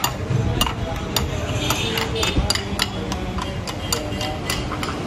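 Steel spoon clinking and scraping against a ceramic bowl as it chops soft noodles. Sharp, irregular clinks come about two or three a second.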